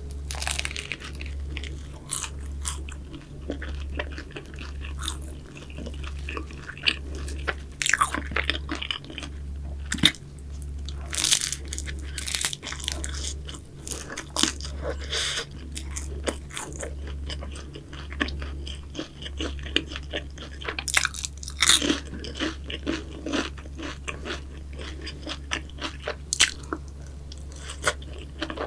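Close-miked crunching bites and chewing of crisp, flaky pastry, with sharp crackles at irregular intervals and a few louder bites.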